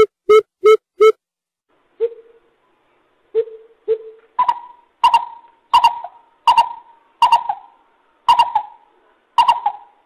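Greater coucal calling a series of hollow hoots: three low hoots spaced unevenly, then from about four seconds in a run of higher hoots, roughly one every 0.7 seconds.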